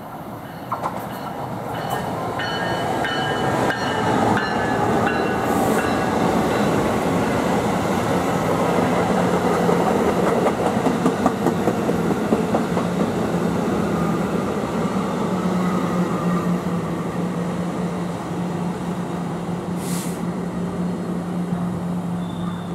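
Electric passenger train passing through a station, its wheels clicking over the rail joints. The sound builds over the first several seconds, and a steady low hum runs under it through the rest.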